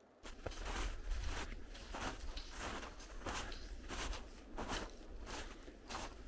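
Footsteps crunching through snow at a steady walking pace, about three steps every two seconds, starting a moment in.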